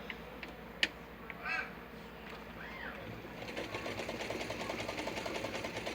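Vintage Brother 151 sewing machine starting up about halfway through and running at a rapid, even stitching rhythm, its freshly relubricated mechanism chattering steadily. Before it, a single click and a few short chirps.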